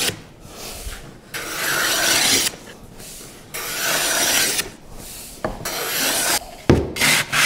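Japanese wooden block plane being pushed along the edge of a plywood panel, shaving it in strokes about a second long, then a run of short, quick strokes near the end.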